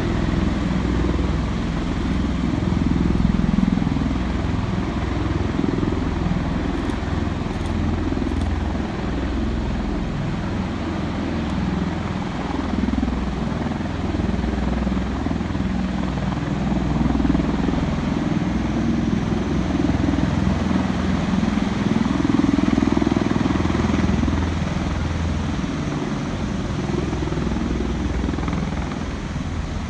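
V-22 Osprey tiltrotor engines and proprotors running, a loud steady rumble that swells and eases slowly.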